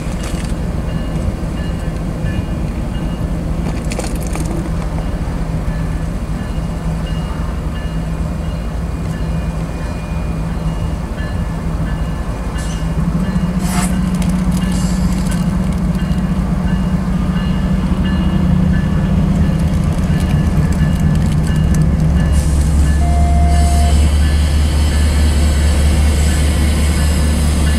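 Kansas City Southern diesel locomotives on a manifest freight train passing close by, their engines running with a steady low drone. The drone gets louder about halfway through and turns into a heavy, deep rumble near the end as the trailing units come alongside, with a few sharp clicks along the way.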